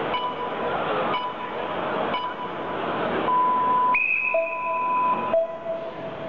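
Electronic match-start countdown beeps over crowd noise: three short beeps about a second apart, then a long beep. From about four seconds in, two more steady tones, one higher and one lower, sound with it.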